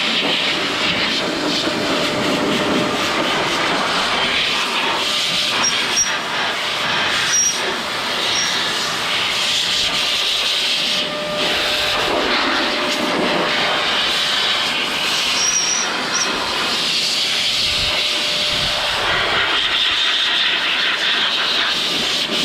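Blaster SideKick portable electric car dryer blowing a steady rush of air to dry off a wet RC car, the tone swelling and shifting every few seconds as the nozzle is moved.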